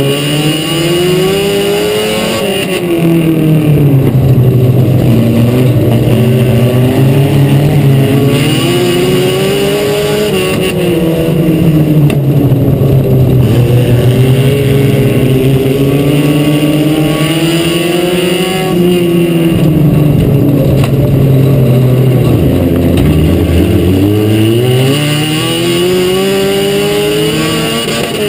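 Four-cylinder mini stock dirt-track race car engine running hard at racing speed. Its revs climb and fall back several times as it accelerates and eases off.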